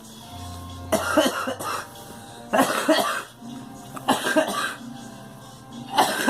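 A girl coughing in four fits about a second and a half apart, each a quick run of several coughs.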